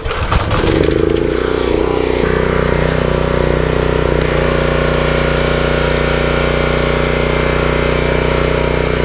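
Briggs & Stratton CR950 engine on a Craftsman 3000 PSI pressure washer cranked and catching almost at once. It settles into a steady run about two seconds in, with high-pressure water spraying from the wand.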